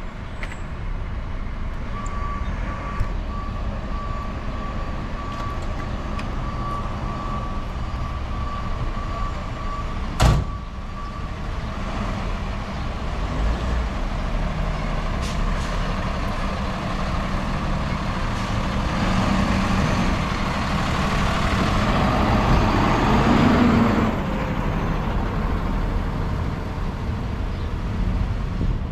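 Truck engines running with a steady low rumble on a busy street, while a reversing alarm sounds a rapid series of beeps at one pitch for about ten seconds. A single loud bang comes about ten seconds in. A louder rush of engine and road noise builds from about twenty seconds in and eases off a few seconds later.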